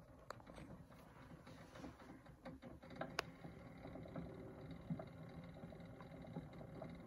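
Faint surface crackle and scattered small clicks of a diamond stylus riding the run-in groove of a spinning Edison Diamond Disc before the music starts, with one sharper click about three seconds in.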